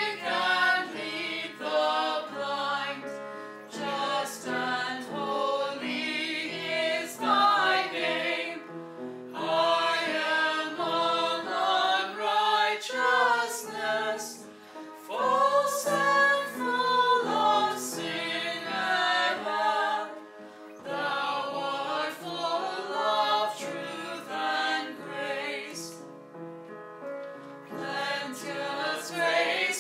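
Choir singing a hymn in phrases, with short pauses for breath between lines.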